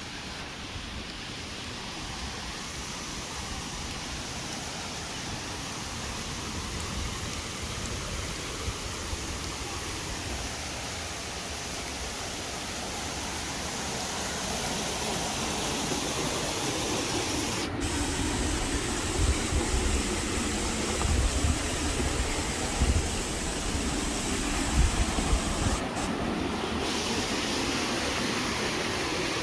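Steady rush of a river's flowing water, growing gradually louder, with occasional low bumps on the microphone in the second half.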